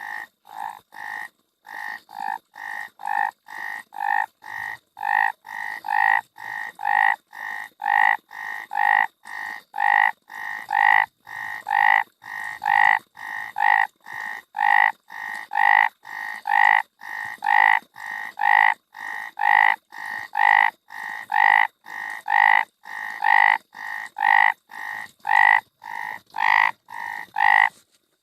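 A frog croaking over and over, about two short croaks a second with clean gaps between them, getting louder over the first ten seconds and stopping just before the end.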